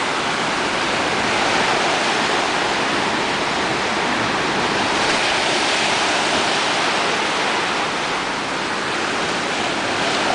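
Surf breaking and washing in the shallows: a steady rushing noise.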